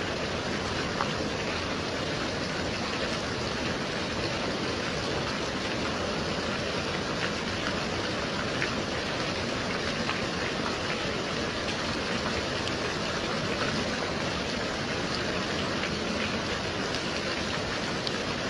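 Steady gentle rain: an even hiss of falling rain with the odd single drop ticking.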